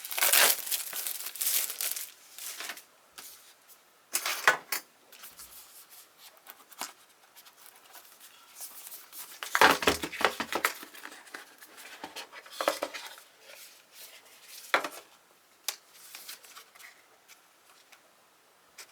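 Cellophane wrapping being torn and peeled off a small cardboard box, crinkling and crackling in irregular bursts with short pauses between. The loudest bursts come at the start and again about ten seconds in.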